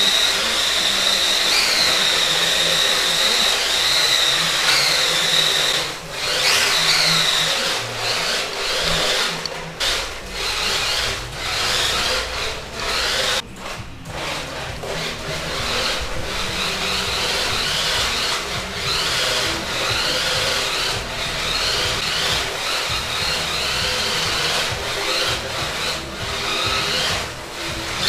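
Small electric motor of a 1/10-scale 4WD RC drift car whining, its pitch rising and falling again and again as the throttle is worked, with a few brief dips where it lets off.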